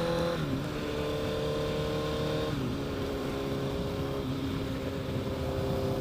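Honda CBR1000RR's inline-four engine running steadily under way, its note dropping to a lower pitch in three steps: about half a second in, two and a half seconds in and four seconds in.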